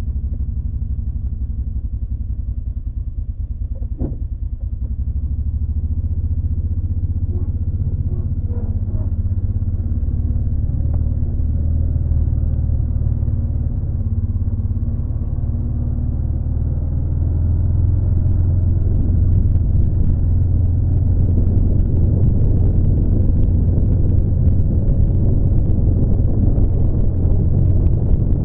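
A motor vehicle's engine running while driving along: a steady low rumble that grows a little louder in the second half, with a brief knock about four seconds in.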